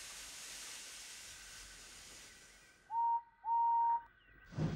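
Steam locomotive sound effect: a hiss of escaping steam that fades away over the first few seconds, then two whistle toots about three seconds in, a short one and a longer one, each sliding up briefly before holding its pitch.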